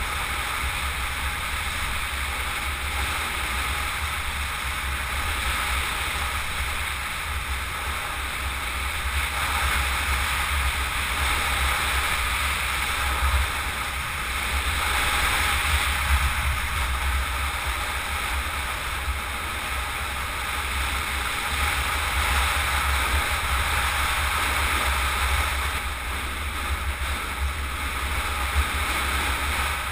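Steady wind rush and low buffeting rumble on a helmet-mounted camera's microphone while riding a bicycle fast down a paved mountain road.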